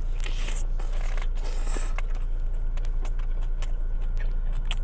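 Crisp scraping and crunching as a fried chicken sandwich is handled and eaten, with scattered sharp clicks, over a steady low hum.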